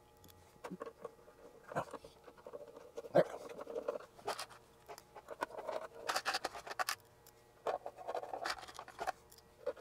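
A hand screwdriver turning screws into an oscilloscope's sheet-metal case, with scratching, irregular metallic clicks and short rattles as the chassis is handled. A denser clatter of scrapes and clicks comes about six seconds in.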